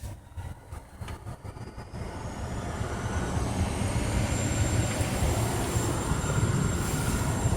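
An Infiniti's air conditioning hissing over a low rumble. The hiss grows louder about two seconds in, and a thin whine climbs in pitch over the first few seconds, then holds steady.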